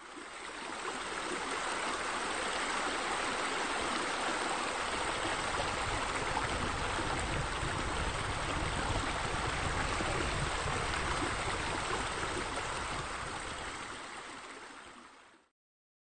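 Steady rush of running, splashing water, like pool bubblers or a fountain. It fades in at the start and fades out just before the end.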